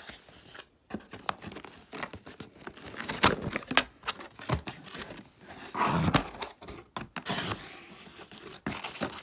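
A shipping package being opened by hand: tearing, packaging crinkling and rustling, and a series of irregular sharp clicks and knocks, with the loudest rips about three and six seconds in.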